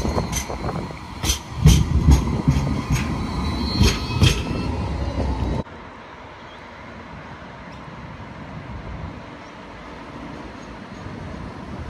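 Citadis X05 light rail tram running past, its wheels clacking over the track several times with a steady high squeal. About halfway through the sound cuts off suddenly to a quieter steady background noise.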